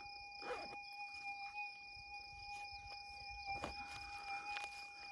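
Minelab GPX 6000 metal detector giving a steady electronic threshold tone, with a few soft rustles and clicks as soil is handled close by.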